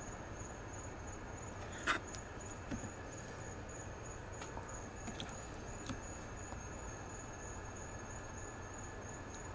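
A fillet knife knocking lightly on a plastic cutting board a few times, the sharpest knock about two seconds in, as the fish fillet is trimmed. A steady high cricket trill runs underneath.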